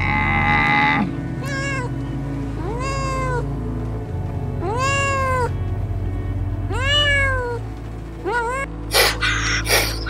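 A domestic cat meowing five times, each meow rising and then falling in pitch, over steady background music. It opens with a short, dense animal call of about a second, and near the end come a few short, loud noisy bursts.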